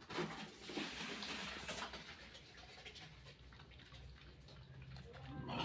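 Piglets feeding at a trough, snuffling and munching rice with a soft, wet smacking, busiest in the first two seconds. A short piglet grunt near the end.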